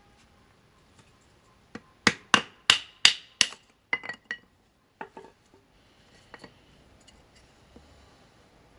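Voltron V05 folding knife's 9Cr18MoV steel blade chopping into a stick of wood about an inch thick: a quick run of five sharp chops, about three a second, then a few lighter knocks.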